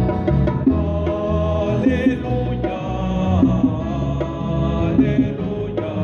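Acoustic guitar strumming and an electric keyboard playing a hymn accompaniment, with a small church choir singing over it.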